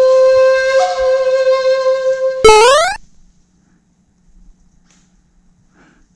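A loud, steady pitched tone, like a horn. It holds for about two and a half seconds with a slight shift in pitch about a second in, then slides sharply upward and cuts off.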